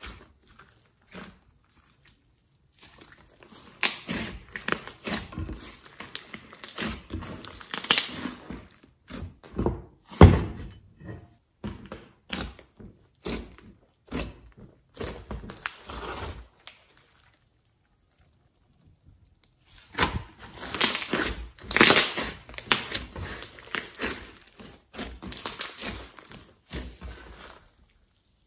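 Hands squishing, pressing and stretching a large mass of glossy slime mixed with clay and glitter: sticky squelches and crackles in two busy stretches with a short lull between them, and one heavy thump about ten seconds in.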